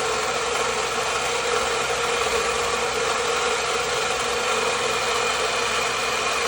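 2009 Lexus IS250's 2.5-litre V6 idling with a loud, steady noise from the engine that a new water pump has not cured.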